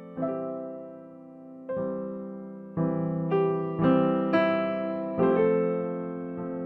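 Background piano music: slow notes and chords struck one after another, some half a second and some a second and a half apart, each left to ring and fade.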